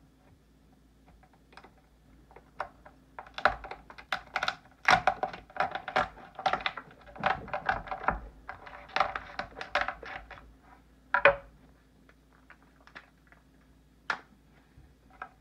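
Cooked lobster tail shell cracking and crunching as hands press it against a wooden cutting board and break it open: a run of irregular snaps and crackles, densest in the middle, with one louder sharp crack about three quarters through and only scattered clicks near the end.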